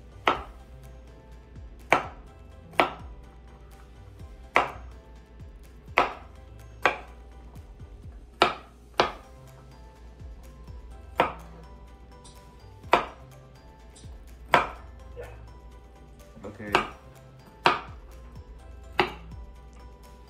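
A kitchen knife chopping walnuts on a wooden cutting board: about fifteen sharp knocks of the blade striking the board, unevenly spaced, roughly one every second or so.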